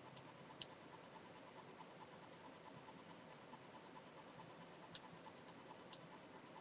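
Knitting needles clicking against each other: a few light, sharp clicks, two in the first second and three more about five seconds in, with quiet between.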